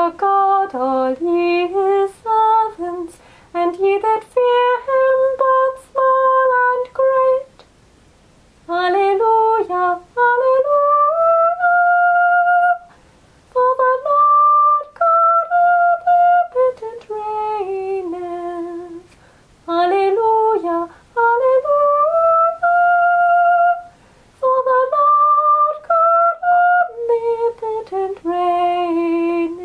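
A woman's voice humming a slow melody alone, in phrases separated by short breaths, with no accompaniment.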